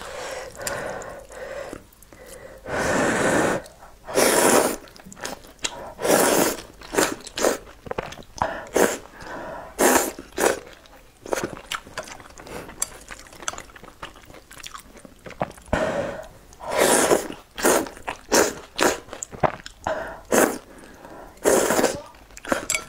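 Close-up eating of noodles in spicy broth: repeated slurps of noodles, each well under a second, between bouts of wet chewing.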